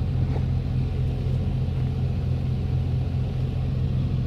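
Old Dodge Ram pickup's engine running with a steady low drone.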